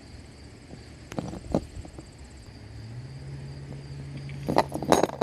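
Sharp metal clicks and clinks from handling a camper door latch and its screws: two light ones early, then a louder cluster near the end. Under them are a steady low hum and a high cricket trill that fades out about halfway.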